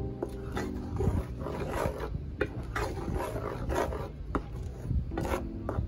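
Wooden spoon stirring a thick blended mango sauce in a metal pan, scraping the pan and squelching through the sauce in repeated strokes, with a brief pitched squeak near the start and again near the end.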